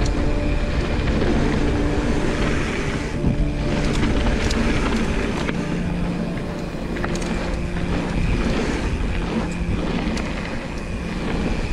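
Mountain bike riding down a bike-park trail: wind buffeting the microphone over tyre rumble, with frequent sharp rattles and knocks from the bike over bumps and a steady buzzing hum underneath.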